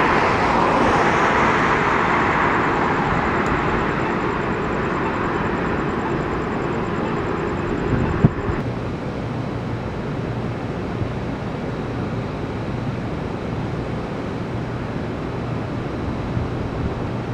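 A passing vehicle: its noise is loudest at the start and fades away over about eight seconds, then gives way to a low steady hum.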